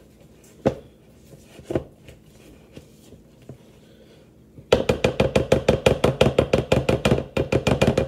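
Wooden spatula stirring batter in a mixing bowl. Two single knocks come early, then about four and a half seconds in a fast, even clacking of the spatula against the bowl starts, about seven strikes a second.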